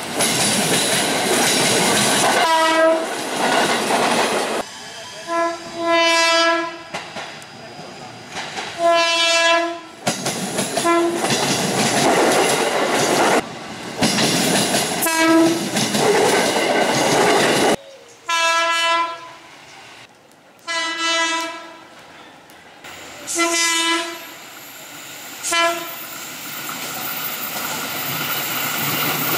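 KRL Commuter Line electric trains sounding their horns in about ten short blasts, each a single steady tone, some in quick pairs. Between the blasts trains run past with loud rushing noise and wheels clattering over the rail joints.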